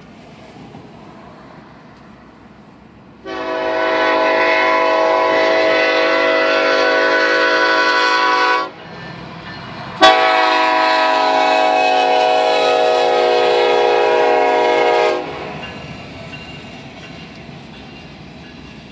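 Multi-note air horn of an approaching KCS freight locomotive sounding two long blasts for a grade crossing, each about five seconds, with a short gap between them. This is the start of the standard long-long-short-long crossing warning. A low rumble of the oncoming train runs under and after the blasts.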